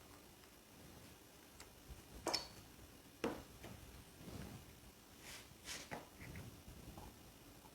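A few scattered faint clicks and light knocks from the parts of a copier's developer unit being handled and taken apart.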